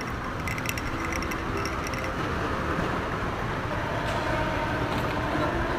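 Steady rumble and hiss of an airport moving walkway in motion.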